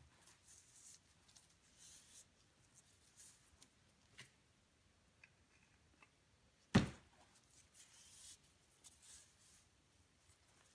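Faint rustling and light clinks of a steel roller chain being handled by gloved hands, with one sharp knock a little before seven seconds in.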